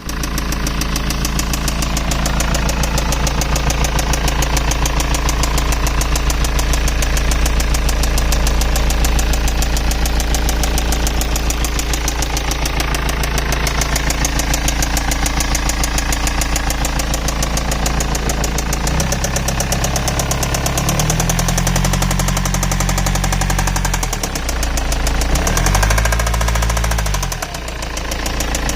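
BMW M47TU2D20 2.0-litre four-cylinder turbodiesel running with a rapid, steady knocking sound, then revved twice near the end. The owner reports that this knock took the place of an earlier squeaking noise.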